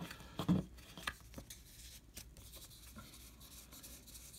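Baseball cards being slid and flipped through by hand: soft rubbing of card stock with a few light ticks.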